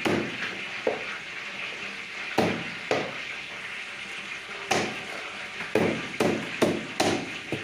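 Cleaver chopping through chicken on a chopping block: a series of heavy, irregular chops, several in quick succession in the second half, over a steady background hiss.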